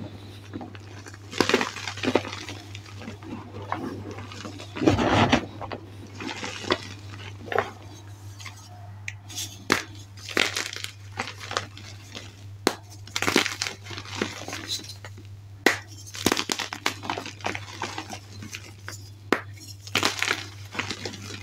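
Hands crushing and crumbling blocks of gym chalk over loose chalk powder: irregular dry crunches and crackles, some sharp, a few strong squeezes among softer crumbling. A steady low hum runs underneath.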